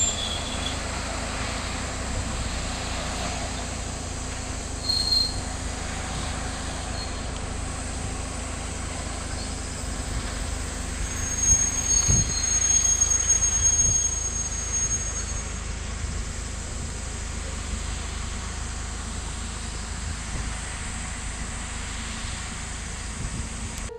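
Diesel railcar running along the track with a steady low rumble, its wheels squealing high for about three seconds around the middle.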